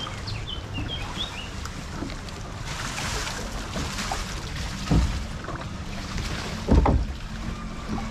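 Log flume boat floating along the water channel, with water rushing and sloshing around it. Two dull knocks come about 5 and 7 seconds in, typical of the boat bumping the side of the trough. A few bird chirps sound near the start.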